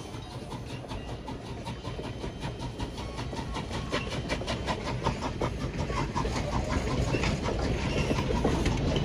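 Steam train on the rails hauled by Canadian National #89, a steady low rumble with rapid clicking from the wheels, growing steadily louder as it approaches.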